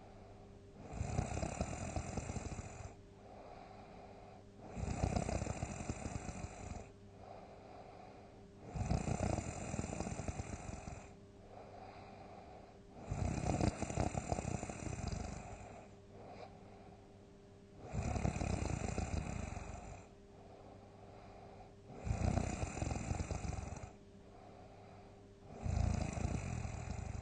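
Heavy snoring: a loud snore about every four seconds, each lasting around two seconds, with a quieter breath between. A faint steady hum runs underneath.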